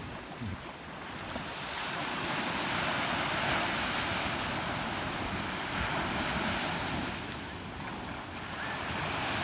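Surf breaking and washing up a sandy beach, growing louder over the first few seconds, easing briefly near the end, then building again, with wind on the microphone.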